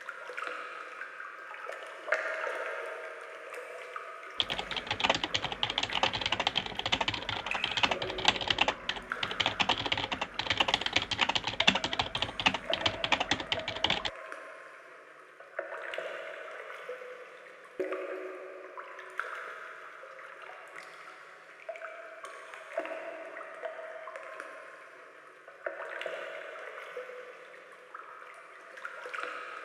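Rapid computer-keyboard typing clicks, starting about four seconds in and stopping abruptly about ten seconds later, over a soft, uneven background of trickling, dripping water.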